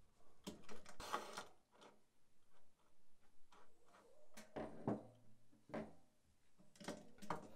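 Scattered metal clicks and knocks from a gun rack's parts being handled, as its rear support is loosened with a screwdriver and slid along the rail.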